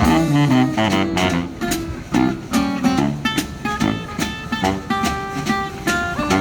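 Music led by acoustic guitar, with plucked and strummed chords in a steady rhythm.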